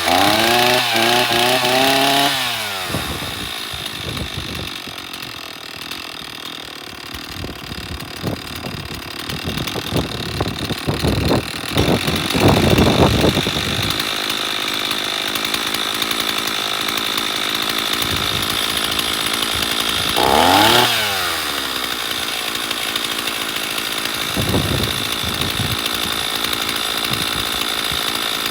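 Stihl two-stroke chainsaw engine running after a carburetor repair, its carburetor settings set by guesswork. It is revved at the start and drops back to idle, is blipped again in the middle, then idles steadily with one more short rev about two-thirds of the way through.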